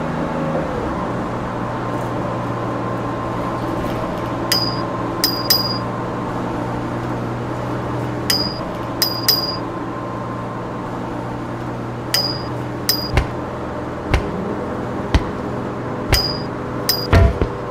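A steady bus-interior engine hum with sharp metallic pings in a repeating group of three, coming about every four seconds, building a beat. Low thuds join about once a second in the last few seconds, and the pings come faster near the end.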